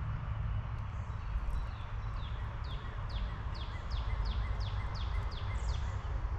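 A songbird singing a run of about ten quick whistled notes, each sliding down in pitch, from about two seconds in until near the end, over a steady low outdoor rumble.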